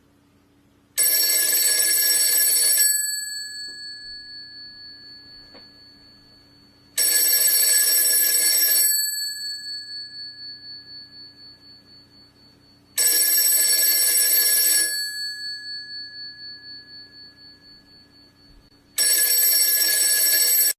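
Telephone bell ringing: four rings about two seconds long, roughly six seconds apart, each fading slowly after it stops; the last is cut off near the end.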